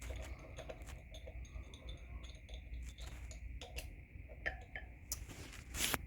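Faint handling noises: scattered small clicks and taps, with two short, louder rustles near the end.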